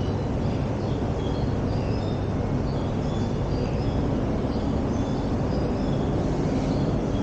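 A steady, dense low rumble of background noise, with short, faint high chirps scattered through it, like small birds calling.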